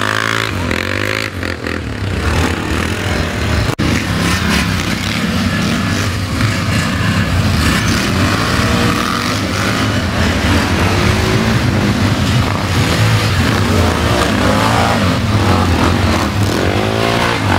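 Quad (ATV) engines running at close range, a steady low rumble whose pitch rises and falls several times as the throttles are worked.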